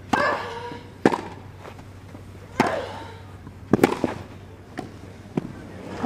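Tennis rackets striking the ball in a rally, starting from the serve: about seven sharp hits roughly a second apart. A player's short grunt comes with some of the shots.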